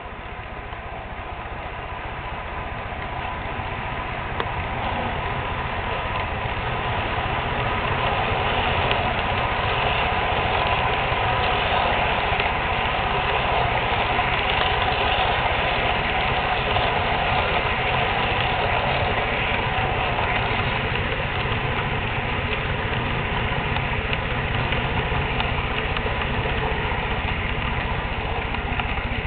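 HO scale model train running past: the locomotive and its empty coal hopper cars rolling on the track with a steady mechanical running sound. It grows louder over the first several seconds as the train comes near, then holds steady.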